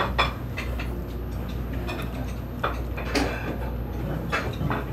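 Scattered light clicks and clinks of chopsticks and ceramic sushi plates, a few sharp knocks spread over a few seconds, over a steady low hum.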